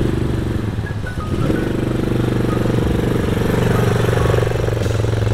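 A motor vehicle engine running steadily, its pitch shifting slightly about a second and a half in.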